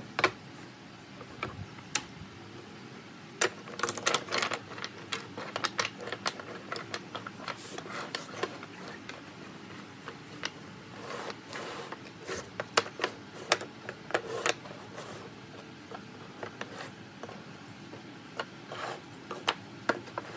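Small wooden blocks and triangular wooden pieces clacking and knocking against each other and a wooden bench top as they are picked up and set down, in irregular bunches of quick clicks.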